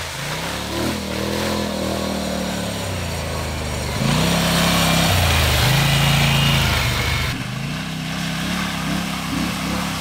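Four-wheeler ATV engine revving and easing off as it is ridden over dirt, its pitch rising and falling. It is louder from about four seconds in to about seven seconds in, when the quad passes close by.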